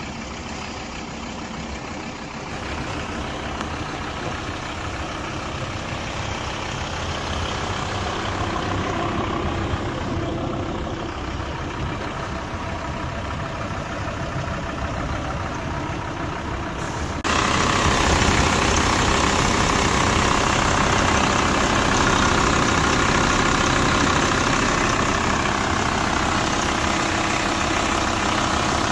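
Car engine idling steadily with a freshly replaced timing belt. About two-thirds of the way through it suddenly becomes louder and stays that way.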